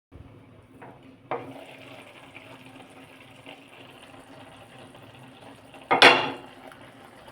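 Kitchen cooking sounds: metal utensils knocking against a pot, with a sharp knock about a second in and a louder clatter about six seconds in.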